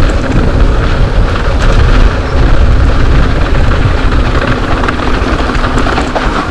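Wind rushing over an action camera's microphone during a fast mountain-bike descent, with a constant rumble from tyres on a rough dirt trail and scattered clicks and knocks from the bike.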